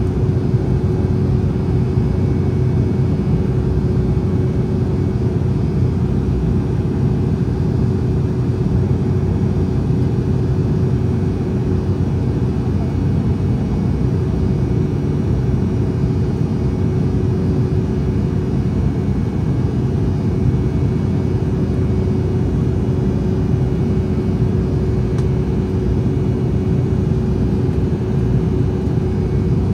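Cabin noise of an Embraer E190 airliner in flight: a steady low rumble of its turbofan engines and rushing air, with a constant hum riding on top.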